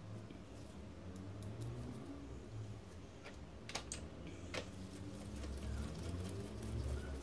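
Scattered light clicks and taps of small plastic and metal printer parts being handled with gloved hands and a screwdriver, over a low rumble.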